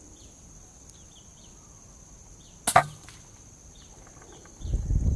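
A single sharp crack of an air rifle firing a pellet, a little under three seconds in. Near the end a low rumble follows for about half a second.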